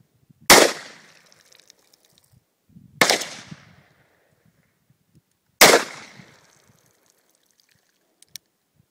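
Colt .45 western-style revolver fired three times, about two and a half seconds apart, each loud shot trailing off over about a second. Two faint clicks come near the end.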